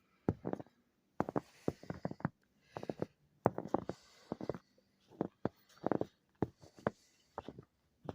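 Footsteps crunching in about an inch of fresh snow at a steady walking pace, a step roughly every half second or so.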